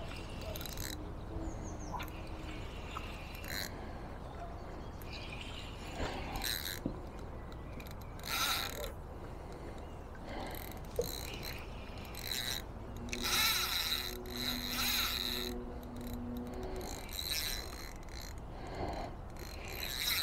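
Fishing reel being wound in several short bursts, with scattered clicks, the longest burst about two-thirds of the way in.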